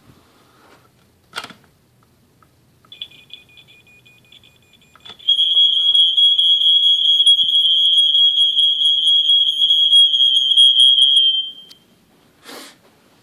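Smoke alarm sounding a single high-pitched tone: it comes in faint and fluttering, then turns loud and steady for about six seconds before cutting off. A sharp click comes before it, and a rustle near the end.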